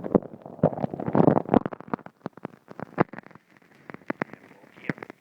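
Footsteps crunching through snow: a quick run of crunching steps for the first second and a half or so, then scattered single crunches and clicks.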